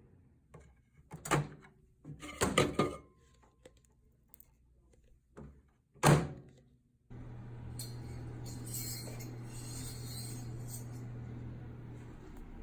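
A few sharp knocks and thumps, loudest about six seconds in, then a steady hum with hiss that starts suddenly about seven seconds in.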